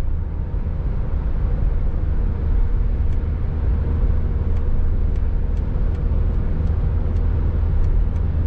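Road and engine noise heard inside a car's cabin while cruising at highway speed: a steady low rumble with tyre hiss, and faint light ticks about twice a second in the second half.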